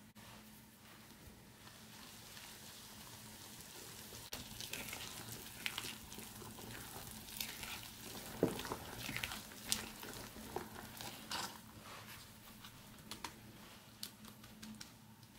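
Wire whisk stirring thick flour batter in a ceramic bowl. Irregular clicks and scrapes of the tines against the bowl start about four seconds in, over a low steady hum.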